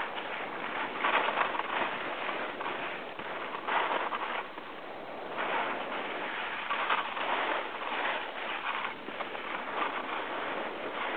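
Skis scraping and hissing over packed, groomed snow on a downhill run, the noise swelling and fading every second or two.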